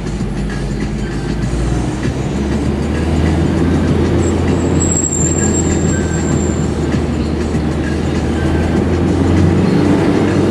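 Steady low rumble of a car's engine and road noise heard from inside the cabin, moving slowly in dense traffic with motorcycles alongside. A faint, thin high-pitched tone sounds briefly about five seconds in.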